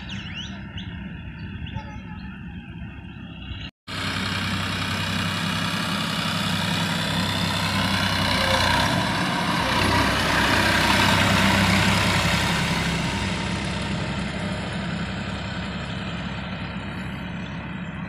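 TAFE tractor's diesel engine running as it drags a leveling board over ploughed soil, louder as it passes close about halfway through and fading as it pulls away. The sound cuts out for an instant about four seconds in.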